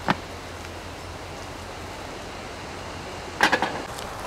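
A few short, sharp knocks and clatters: a single click right at the start and a quick cluster of loud clacks about three and a half seconds in, over a faint steady hum.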